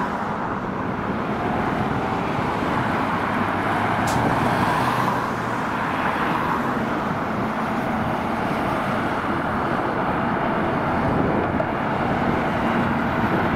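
Steady engine noise of taxiing airliners, a rumble with a faint whine, blended with road traffic noise. A brief sharp tick about four seconds in.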